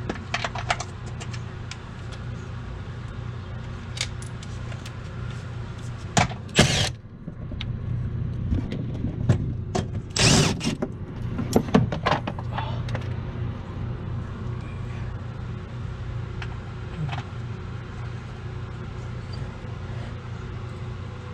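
Scattered clicks, knocks and clatters of hand tools and fasteners as the car's underside shield is taken off, two of them loud, about six and ten seconds in. Under them runs the steady hum of a swamp cooler fan, with its air blowing on the microphone.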